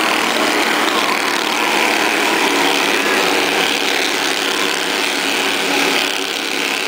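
Engines of a pack of small Bandolero race cars running at speed around a short oval, a steady, loud engine noise with the cars passing one after another.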